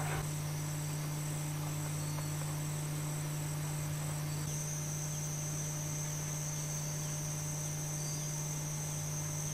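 Rainforest insects trilling in steady, high, unbroken tones; about four and a half seconds in, a slightly lower trill grows stronger. A steady low hum lies beneath.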